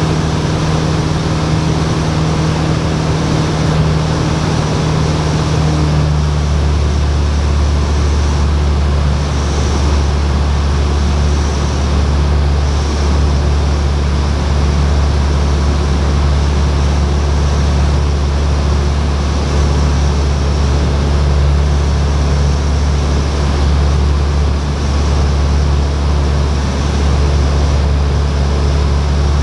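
Light single-engine airplane's piston engine and propeller droning steadily, heard inside the cockpit. About six seconds in the engine note shifts, its hum settling lower and heavier.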